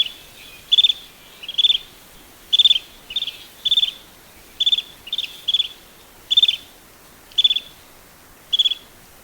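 Greater sand plover calling: about a dozen short, rippling trills, each a quick run of a few notes, repeated at irregular intervals of roughly half a second to a second.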